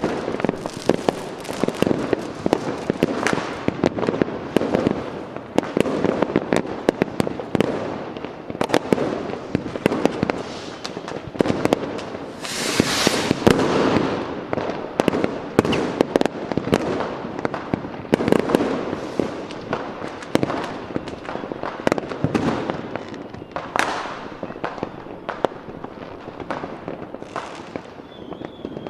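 Fireworks going off in quick succession: many sharp bangs and crackles, with a louder hissing burst about halfway through.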